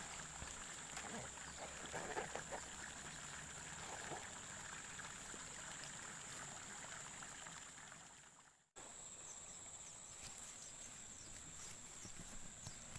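Faint trickling water under a steady high-pitched hiss, with a few light rustles and knocks in the first seconds. The sound fades out and cuts back in abruptly about two-thirds of the way through.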